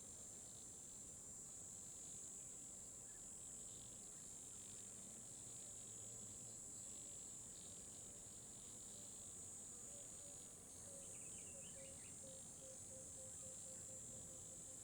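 Faint, steady, high-pitched insect trill, likely crickets, with a brief run of faint, evenly spaced low pulses near the end.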